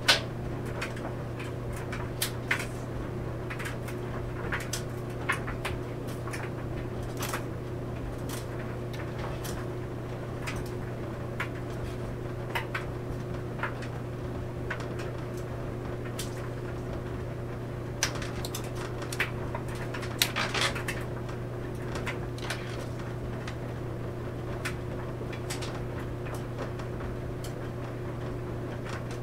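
Clothes dryer running: a steady low hum with irregular sharp clicks and knocks from laundry tumbling in the drum. The loudest clicks come right at the start and in a cluster a little past the middle.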